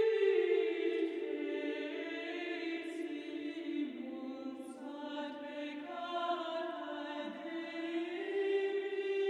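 Music soundtrack of slow, long-held notes that step down in pitch over the first half and climb back up near the end.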